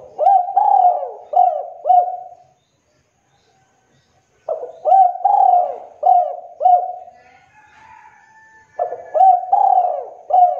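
Spotted dove cooing: three phrases, each of four or five quick swooping coos, a few seconds apart.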